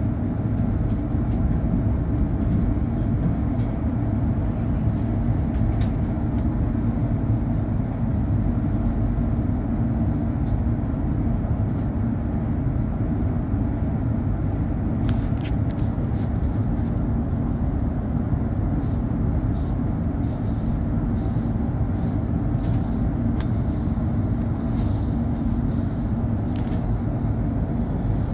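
Steady low rumble inside the passenger saloon of a Norwegian type 75 (Stadler FLIRT) electric multiple unit running on the line, with a faint thin high whine for a few seconds about a quarter of the way in.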